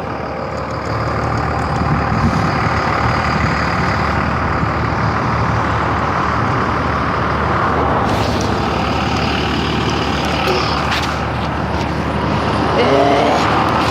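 A heavy road vehicle's engine running steadily, with wind buffeting the microphone.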